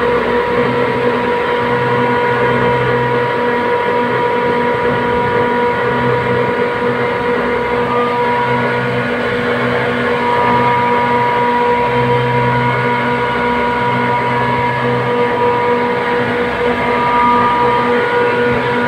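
Steady machine drone with a constant hum, a low throb that swells and fades every second or two.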